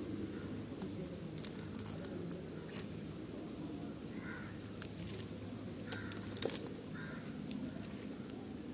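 Packaging being handled: crisp crackles and clicks of paper and a plastic-wrapped box, scattered irregularly, over a steady low outdoor rumble.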